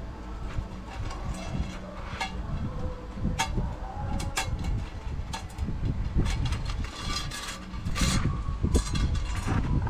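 Light metal clinks of a scale's hanging chain and hooks being handled against its metal pan: a few sharp clicks, about two seconds in, three and a half, four and a half and eight seconds in, over a steady low rumble.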